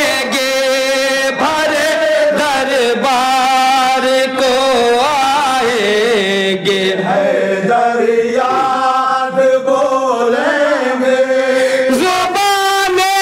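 A group of men chanting a devotional Urdu manqabat together, one leading at the microphone, in long held, wavering notes.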